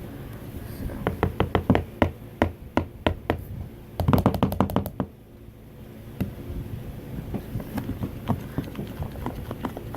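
A run of sharp taps and knocks from hands working with slime-making things. The taps come in a quick series, then a dense cluster of them about four seconds in, then lighter scattered clicks.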